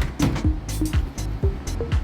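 Background music with a steady beat: deep bass drum hits that slide down in pitch, with crisp high ticks like hi-hats between them.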